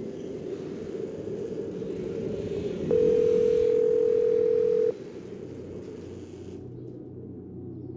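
Telephone ringback tone heard down a phone line: one steady tone about three seconds in, lasting about two seconds, over a steady background hiss and hum.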